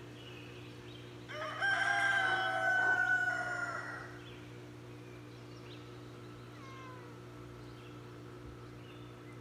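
A rooster crows once, starting about a second and a half in and lasting roughly two and a half seconds, ending on a long, slightly falling note.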